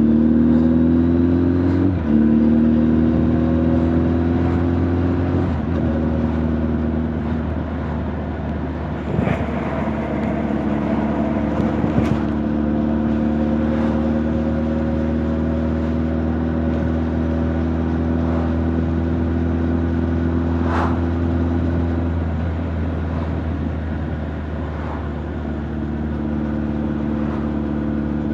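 Honda CB1300 Super Bol d'Or's inline-four engine and exhaust under way, heard from the rider's back. The revs climb at the start, with brief breaks in the note about two and five and a half seconds in, then hold steady at cruise. The pitch drops slightly about three quarters of the way through, with a few short knocks along the way.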